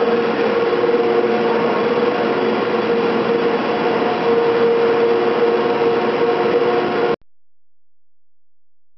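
Cable-winding machinery of the San Francisco cable car powerhouse running: a steady mechanical noise of turning sheaves and moving haul cables, with a sustained hum. It cuts off suddenly about seven seconds in.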